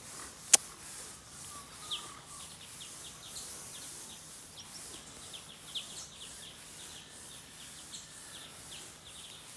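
Small birds chirping faintly and repeatedly in the background, with one sharp click about half a second in.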